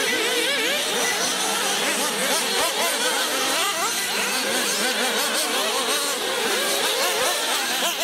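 Several radio-controlled off-road racing buggies on a dirt track, their small motors revving up and down in many overlapping high-pitched whines as the cars accelerate and brake through the corners.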